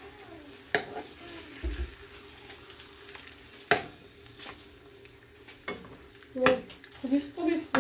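Eggs sizzling steadily in oil in a nonstick frying pan while a metal spoon scrapes and knocks against the pan as it lifts and turns them. Sharp clinks come about a second in, near four seconds, and several close together near the end.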